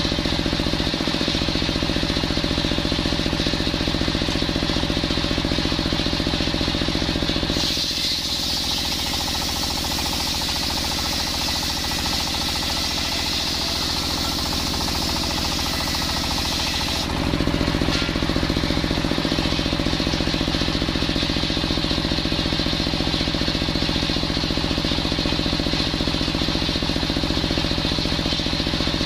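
Engine-driven circular sawmill, a large sharp circular blade spinning freely with the engine running steadily. About a quarter of the way in, the blade rips lengthwise through a coconut-palm log for about ten seconds, adding a loud high-pitched hiss while the engine's steady note drops under the load. It then returns to the free-running hum.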